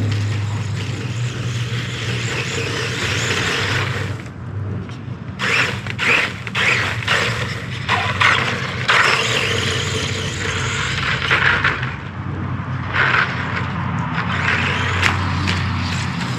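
Electric 4x4 remote-control truck driving over rough ground: its motor runs with a steady hum while the tyres scrape. Irregular sharp knocks come as it bumps along, thickest in the second half.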